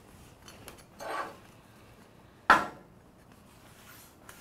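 Steel tubing handled on a steel welding table: a short scrape about a second in, then one sharp metal clank with a brief ring about two and a half seconds in.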